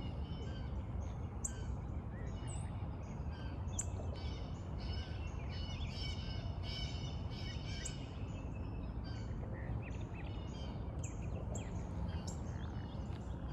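Birds chirping and calling: many short, repeated high notes over a steady low background noise.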